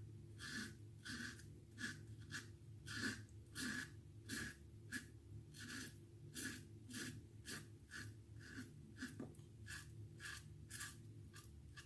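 Feather Artist Club SS straight razor scraping stubble in short, quick strokes, about two a second, as touch-up passes over the trouble spots.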